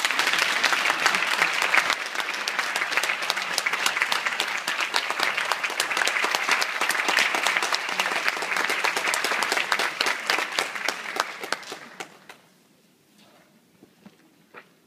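Audience applauding, a dense patter of many hands clapping that dies away about twelve seconds in, leaving a few scattered small sounds.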